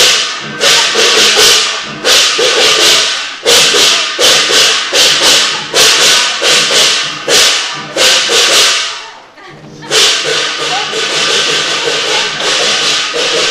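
Lion dance percussion: cymbals crashing in quick repeated strokes over a drum. The beat breaks off for a moment about nine seconds in, then comes back with a hard crash and a steady shimmer of cymbals.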